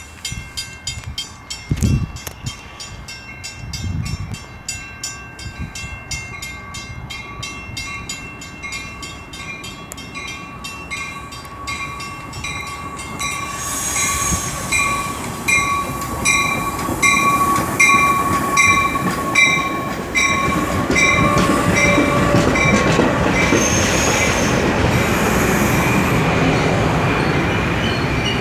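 Metra push-pull commuter train arriving at a station, with a bell ringing in rapid, even strokes throughout. From about halfway in, the rumble of the approaching bilevel cars grows louder until they roll past near the end.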